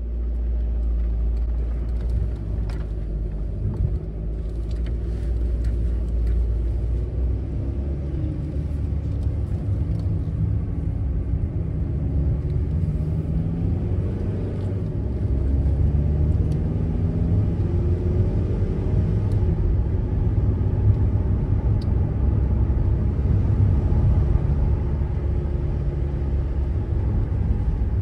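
VW California camper van's engine and tyre rumble heard from inside the cab while climbing a winding mountain road, with the engine note rising and falling through the bends.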